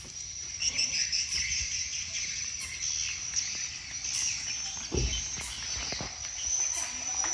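Steady high-pitched insect chirring, with quicker flickering chirps beneath it; a single low thump about five seconds in.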